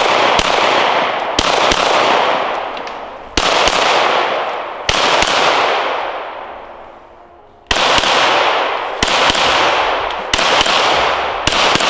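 Pistol fired in quick pairs (double taps): about eight pairs of sharp shots, each pair a split second apart, every shot trailing a long echoing decay.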